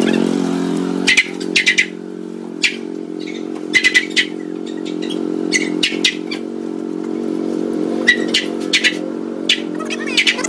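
A steady mechanical hum from a small motor, with short, high bird chirps breaking in every second or so.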